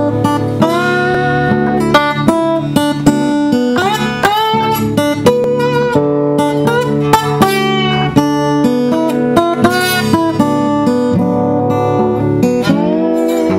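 Music on acoustic guitar: plucked and strummed notes, some sliding up in pitch, at a steady level.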